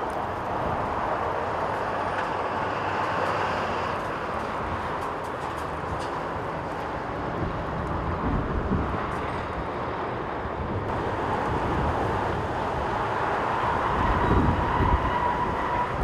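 Jet airliner engines running with a faint steady whine that grows louder near the end, under strong gusty wind buffeting the microphone.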